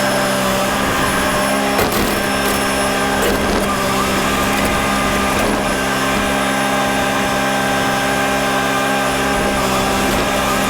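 A motor or engine running steadily at constant speed: an even hum with a rushing noise over it and a few light clicks.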